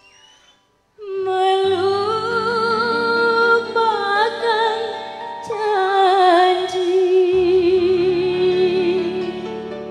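A woman singing long held notes with vibrato over sustained band chords. She comes in after a brief silent gap about a second in.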